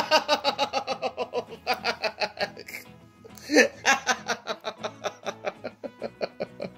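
A person laughing in two long runs of quick pulses, the first run falling in pitch, with a short break about halfway.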